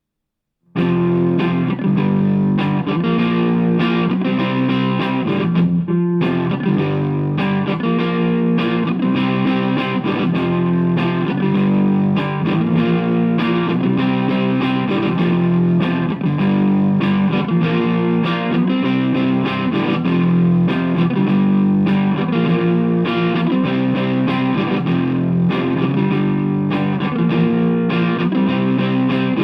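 Electric guitar (a Vintage V100 Les Paul) played through a DigiTech GNX3 multi-effects preset into an H&K Attax amp, a distorted, effects-laden tone playing a continuous riff. It starts just under a second in, with a brief break around six seconds in.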